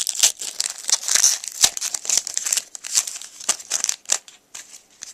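A trading-card pack wrapper crinkling as it is torn open and handled. The crackling is busy at first and thins out after about four seconds.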